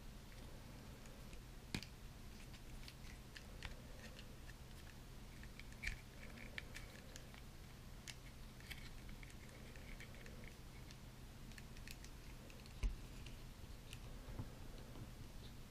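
A hard plastic action figure being handled and posed: scattered light clicks and taps of its plastic armour and joints, with a few sharper clicks and one louder knock near the end.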